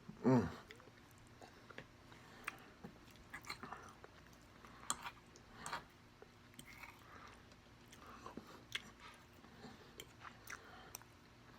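Close-up mouth sounds of chewing and biting food, with scattered soft clicks and crunches. Just after the start there is a short falling 'mm' hum, the loudest sound.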